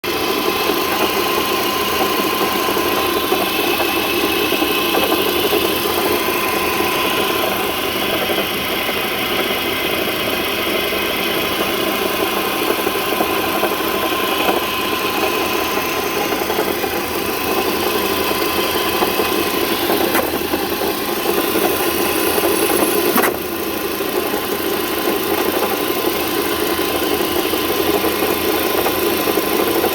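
2006 Volvo XC90 T5's turbocharged five-cylinder engine running steadily at idle, with a thin steady whine over it. This is an unusual noise that started a day earlier, although the pulleys and belts appear to be in order. A single sharp click with a brief drop in level comes about three-quarters of the way through.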